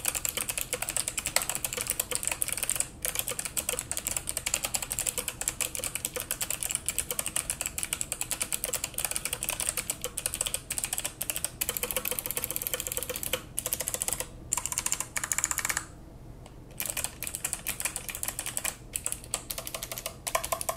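MSI Vigor GK50 Elite mechanical keyboard with clicky Kailh Box White switches being typed on fast: a dense run of sharp clicks, a click on every keypress, broken by a few short pauses. The clicks lack the metallic ping that blue switches can have.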